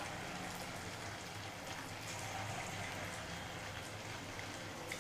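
Idli-batter bondas deep-frying in hot oil: a steady sizzle with small crackles.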